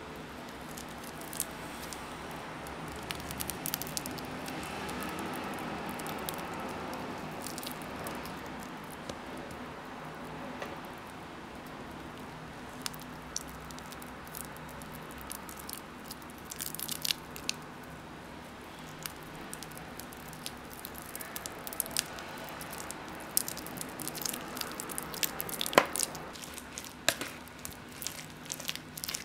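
Soft wet squishing of mashed banana being worked into creamed butter batter by hand-mixer wire beaters. Sharp clicks of the metal beaters against the bowl come more and more often in the last several seconds as the mixing speeds up.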